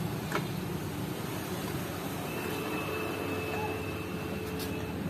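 Steady background noise with one light click about half a second in, and a faint steady tone joining it about halfway through.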